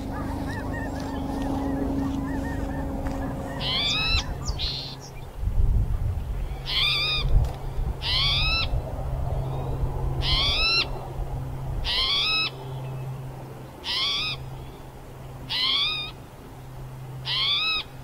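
Spotted towhee giving its short, rising, mewing call over and over, about every second and a half.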